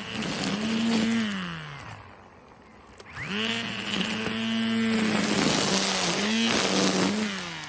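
Kobalt 24-volt battery-powered string trimmer cutting tough grass in bursts. The motor spins up, winds down about two seconds in, spins up again a little after three seconds, runs, and winds down near the end.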